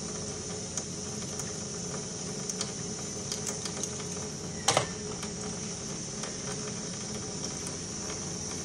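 Tap water running steadily from a faucet into a utility sink, with small clicks of handling. A sharper knock comes about five seconds in.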